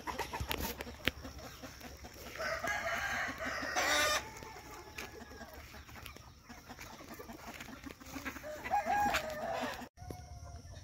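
Free-range native country chickens clucking and calling, hens and roosters together, with a louder call about nine seconds in. A short rustling burst about four seconds in.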